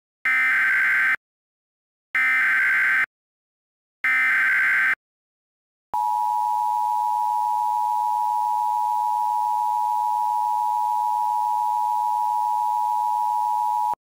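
Emergency Alert System tones: three bursts of SAME header data, each about a second long with about a second of silence between, announcing the alert. About a second after the last burst, the steady two-tone EAS attention signal starts and holds for about eight seconds.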